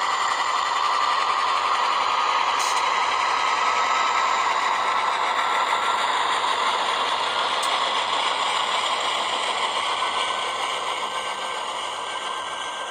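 DCC sound decoder in a model UGL C43/C44 diesel locomotive playing its diesel engine sound through the model's small onboard speaker, thin with no bass. A faint whine slowly rises in pitch, and the sound gets quieter over the last few seconds.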